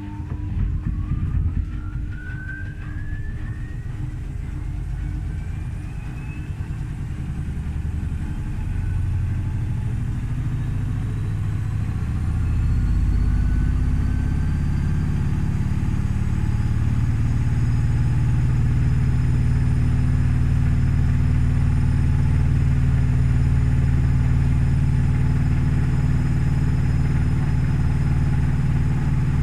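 Gorenje washing machine spinning up with an unbalanced load: the motor whine rises in pitch, and the drum's low rumble grows louder, levelling off into a steady spin about halfway through.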